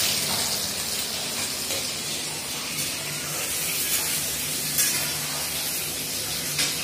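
Sliced onions sizzling steadily in hot oil in a kadhai as they fry, with a couple of short spatula scrapes against the pan.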